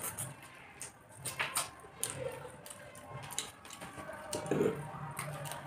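Eating at the table: chewing, and fingers working rice and curry on plastic plates, with scattered small clicks and taps.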